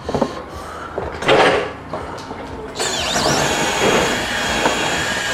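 Cordless drill boring into the plywood floor of a van's load area to fix down a seat-bed frame: a short burst about a second in, then a longer steady run from about three seconds in.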